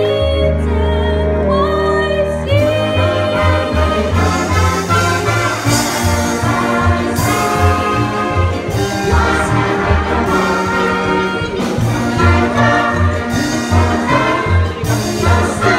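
Live pit orchestra with trumpets and trombones playing a show tune. It holds a chord at first, and a couple of seconds in a steady bouncing bass beat starts under the band.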